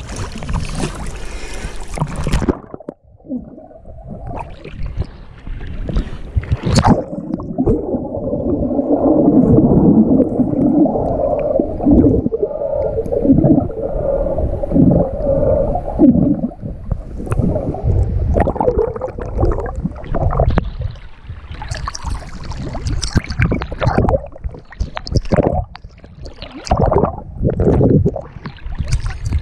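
Water heard through a submerged action camera: about two and a half seconds in the sound turns muffled and dull, a churning gurgle of moving water and bubbles around a diving snorkeler. In the later part, sharp splashes break in as the camera bobs at the surface.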